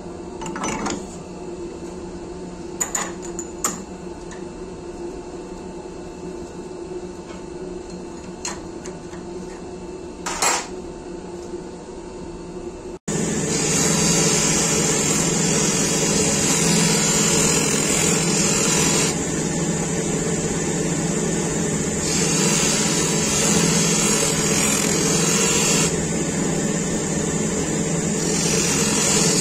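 A steady hum with a few sharp knocks as an abrasive flap wheel is handled and fitted onto a bench grinder's spindle. About 13 seconds in, the grinder runs loud with the steel blade of a spoon carving (hook) knife held to the spinning wheel, a hissing grind that grows and eases several times as the blade's contact changes.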